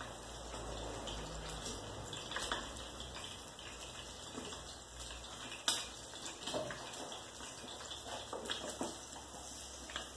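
Faint hiss of egg frying in a pan on a gas stove, with scattered light taps and scrapes of a utensil against the pan; the sharpest tap comes about six seconds in.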